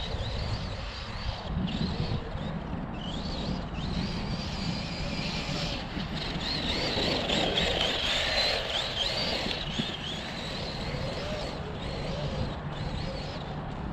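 Losi 3XL-E electric RC truck running on its Hobbywing 2250kv brushless motor: a high motor whine that rises and falls with the throttle, over a steady rushing noise.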